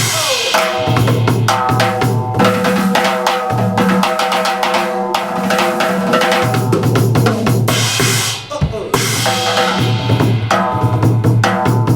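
Band music with a loud drum kit to the fore: bass drum, snare and cymbals playing over pitched instruments, with a brief break about eight and a half seconds in.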